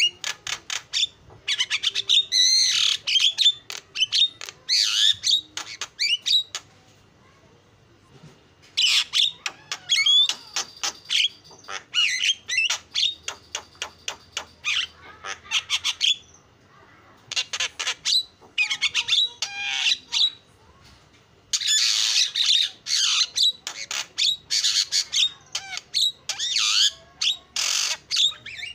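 Javan myna singing in bouts: rapid runs of harsh chattering clicks mixed with gliding whistled notes. Brief pauses break the song, the longest about six to eight and a half seconds in.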